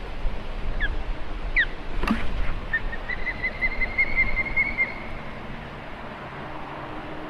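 Wind rumbling on the microphone, with two short down-slurred calls, a sharp knock about two seconds in, then a rapid run of about a dozen high piping notes lasting about two seconds from a bird of prey.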